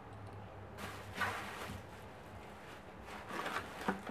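Crinkling and rustling of packing paper and plastic wrap as hands dig through a shipping box, in two bursts: one about a second in, another near three seconds, each with sharp crackles.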